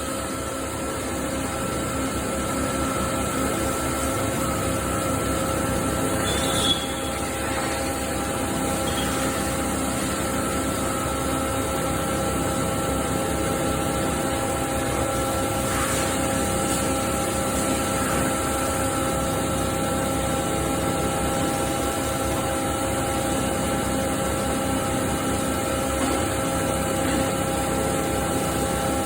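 CNC machining centre cutting SS400 steel, a steady machining sound with several constant tones from the spindle and cutter. There is one brief click about seven seconds in.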